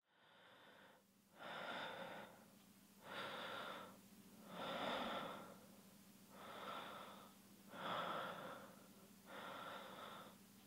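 Faint, slow, even breathing close to the microphone, one breath sound about every second and a half.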